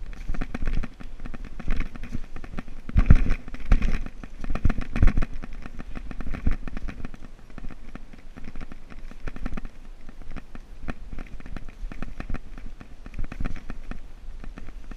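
Scuffing, rubbing and handling noise from a person crawling through a narrow earthen tunnel with the camera in hand: dense crackling rubs with heavier thumps about three seconds in and again about five seconds in.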